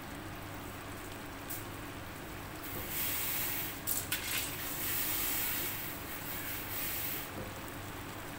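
Chicken and pumpkin in a little sauce sizzling steadily in a wok left to cook. The hiss swells for a few seconds in the middle, and there are a couple of light ticks about four seconds in.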